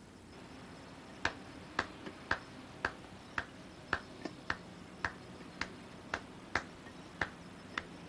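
A series of sharp clicks, about two a second and roughly evenly spaced, starting about a second in and stopping shortly before the end, over a faint steady hum.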